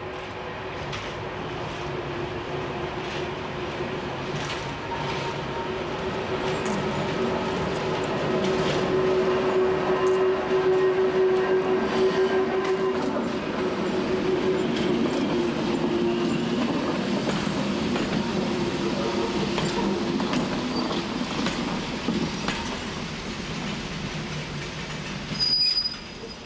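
Vintage 600-volt electric railcar towing the unpowered ET 91 glass railcar past at low speed. A steady hum runs under wheels clicking over rail joints, growing louder to a peak about ten seconds in and easing off slowly. A brief high squeal comes near the end.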